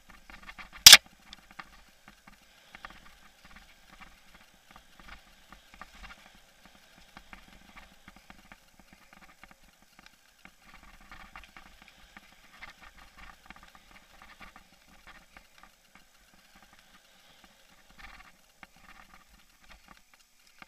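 Action camera rattling in its mount on a mountain bike riding over rough dirt singletrack: faint, irregular clicking and knocking, with one loud sharp knock about a second in.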